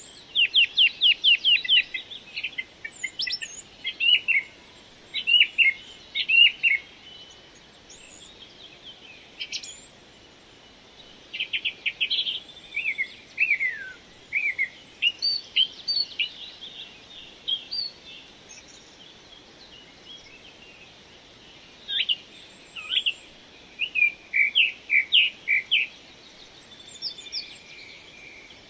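Small songbirds singing: bursts of fast trilled notes and short whistled chirps, some sweeping downward, in clusters with pauses between.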